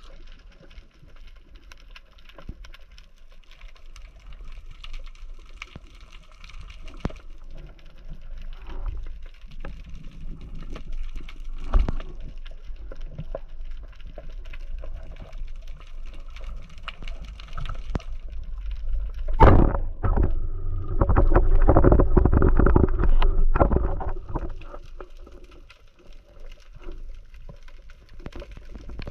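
Underwater sound picked up through a speargun-mounted camera's housing while a freediver swims: a faint crackling, hissy water background. About two-thirds through there are a couple of sharp knocks, followed by several seconds of much louder rushing water noise that then dies away.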